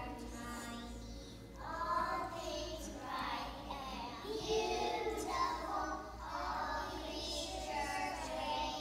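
A group of young children singing a song together, phrase after phrase.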